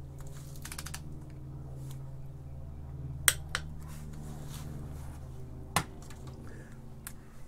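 A few sharp metallic clicks from a Craftsman torque wrench and socket being worked on the flywheel bolts, the loudest about three seconds in and again near six seconds, over a steady low hum.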